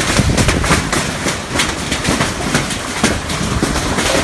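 Heavy hail pelting down: a loud, dense, unbroken clatter of many hailstones striking.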